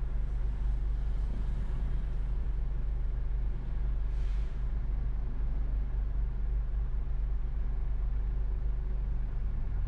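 Car being driven through city traffic: a steady low rumble of engine and road noise, with a brief hiss about four seconds in.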